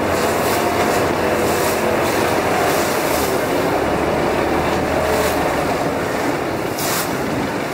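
Motorboat engine running at a steady drone under the constant rush of choppy river water, with a few short bursts of hiss.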